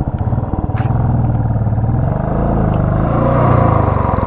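Royal Enfield Classic 350's single-cylinder engine revving hard under load while the motorcycle struggles through deep mud. Its slow thump gives way to a dense, steady drone that builds to its loudest near the end.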